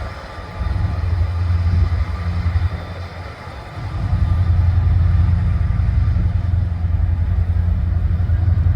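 Train passing, with a heavy low rumble that swells about half a second in, dips briefly, then builds again about four seconds in and holds.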